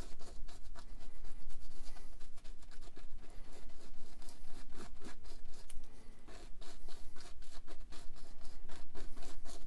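Fan brush dabbing and scrubbing oil paint onto a stretched canvas, a quick run of scratchy brush strokes.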